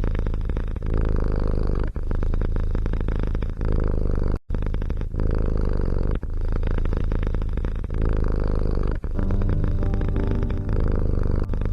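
Domestic cat purring close to the microphone. It makes a steady, rapidly pulsing rumble that breaks off briefly every second or two.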